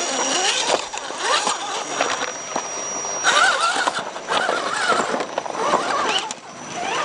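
Electric motors and gearing of RC rock crawlers whining, the pitch wavering up and down as the throttle is worked. A thin steady high whine runs underneath.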